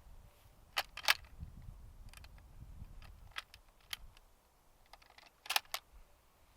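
Handling noise: a scattering of sharp clicks, the loudest a pair about a second in and another pair about five and a half seconds in, over a low rumble in the first half.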